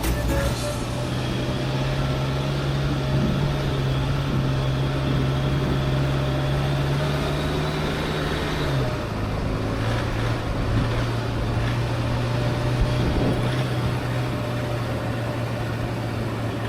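Vehicle engine running steadily while driving, a strong even drone that drops a little in pitch about halfway through as the revs fall, over road and tyre noise.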